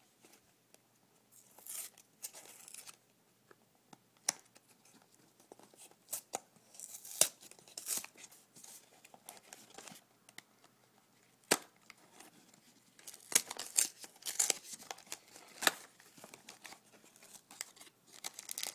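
A Re-Ment blind-box package being opened by hand: plastic packaging tearing and crinkling in fits and starts, with a few sharp clicks.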